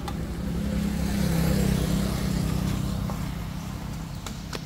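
A road vehicle passing close by, its engine and tyre noise swelling to a peak a second or two in and then fading away. A short light knock near the end.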